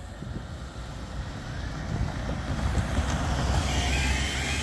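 A van driving past close by on a wet road: engine and tyre hiss growing louder over the first few seconds. About three and a half seconds in, the level crossing's electronic alarm starts, a quickly repeating pattern of short rising tones, as the amber road light comes on at the start of the barrier activation.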